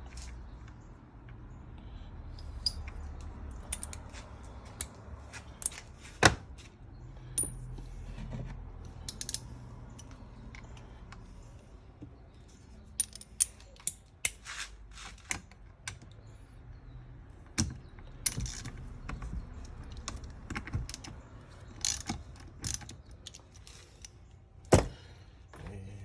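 Scattered metallic clicks, clinks and knocks of hand tools and small metal parts being handled while the wiper motor is taken off a 1965 Volvo 122S wiper assembly. Two louder knocks, about six seconds in and near the end.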